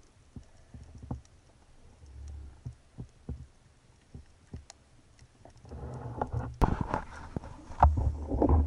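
Underwater noise picked up by a diving camera: scattered sharp clicks and knocks over a low rumble, turning into louder rushing water noise with heavy low thumps and knocks from about six seconds in.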